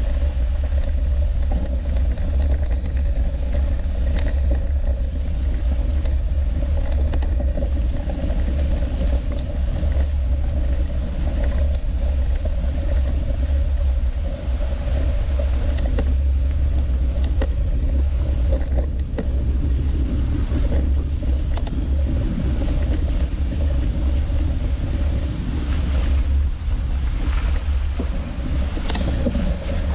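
Steady low rumble and rattle of a mountain bike rolling slowly over a wet, muddy gravel track, with scattered knocks from bumps and tyres squelching through mud and puddles.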